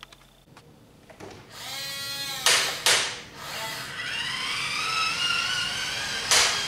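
Remote-control 1/14 scale wheel loader's small electric drive motor and gearbox whining as it drives, starting about a second and a half in, its pitch shifting with speed. Three loud pops break in as the steering turns all the way to one side and its safety mechanism lets go.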